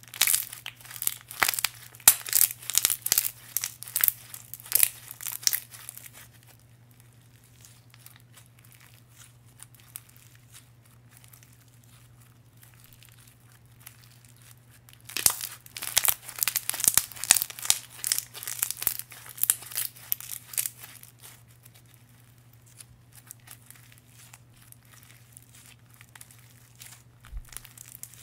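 Clear slime packed with glitter, beads and sprinkles being squished and folded by hand, giving dense crackly clicks and pops. It comes in two bursts, one at the start and one about halfway through, with quieter stretches between and near the end while the slime is pulled out.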